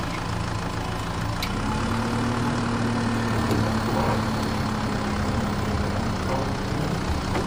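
Steady low engine-like drone, its pitch stepping up slightly about a second and a half in, with a light click at that moment.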